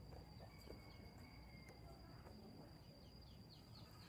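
Near-silent outdoor ambience: a faint steady high-pitched insect trill, with a few quick falling chirps near the end.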